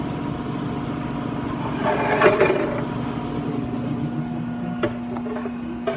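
Betenbender hydraulic press brake running, its electric motor and hydraulic pump giving a steady hum, with a brief louder mechanical clatter about two seconds in and a few sharp clicks near the end as the powered back gauge moves into its 2-inch position.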